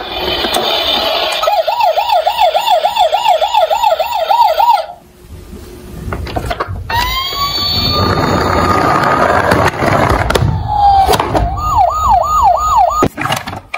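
Electronic siren sound effect from a battery-powered toy police car: a fast warbling yelp of about four to five wobbles a second, a short break, then a rising wail over a low rumbling noise, and another brief burst of yelp near the end, with sharp clicks between the sounds.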